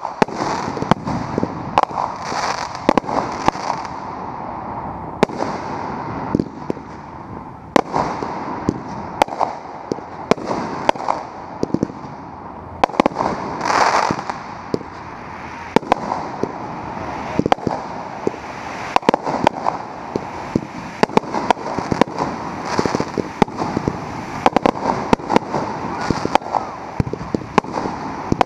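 Consumer fireworks firing in quick succession: a near-continuous string of sharp launch thumps, bursts and pops over a steady hiss, with one bigger burst about halfway through.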